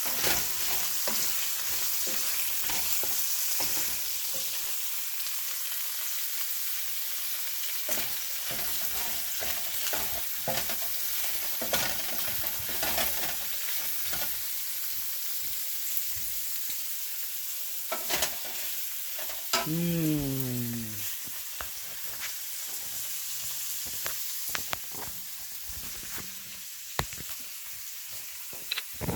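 Stir-fry of meat and vegetables sizzling in a hot pan, with scattered scrapes and clicks as it is stirred. About two-thirds of the way through, a short tone falls in pitch for about a second.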